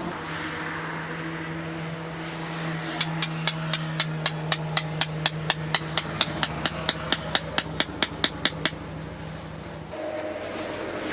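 A hammer driving a tent peg with a fast, even run of sharp metallic strikes, about four a second, which stops abruptly. A steady low hum runs underneath.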